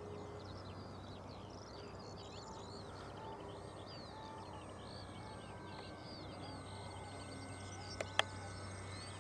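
Many small birds chirping and singing in short overlapping rising and falling calls over a steady low hum, with two sharp clicks about eight seconds in.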